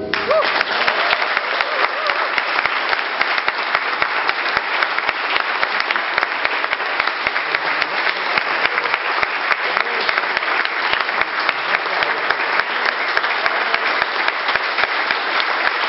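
A small audience applauding steadily.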